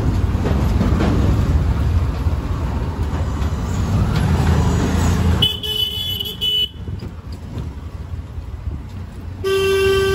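Street rumble of a vehicle in motion that cuts off about halfway. Then a vehicle horn honks for about a second, and honks again for a longer note near the end.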